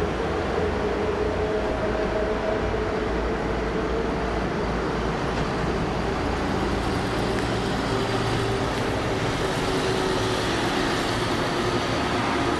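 Distant jet engines of the Frecce Tricolori's Aermacchi MB-339 formation: a steady roar with a low whine that slowly falls in pitch as the aircraft pass.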